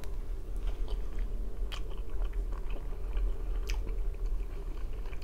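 A person chewing a mouthful of thin-crust pizza, with two short sharp clicks partway through.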